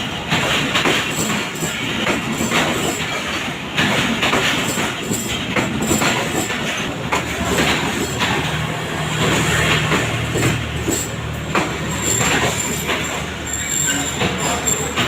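Train moving along the station platform, its wheels clattering over the rail joints in a dense run of clacks, with a low steady hum joining about eight seconds in.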